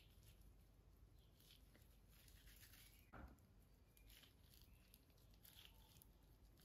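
Near silence, with faint intermittent rustling and squishing of gloved fingers working hair dye through wet hair, and one soft thud about three seconds in.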